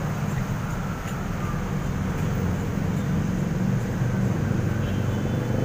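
Steady low background rumble, even and unbroken.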